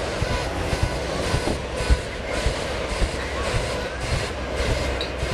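Hot-air balloon propane burners firing for a night glow, a steady rushing noise, with faint crowd voices underneath.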